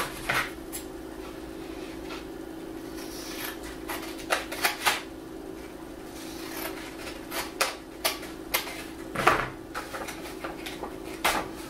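Scissors snipping through construction paper in short, separate cuts, with paper rustling as the folded paper tube is handled, over a steady low hum. Near the end comes a louder knock, the scissors being put down on the table.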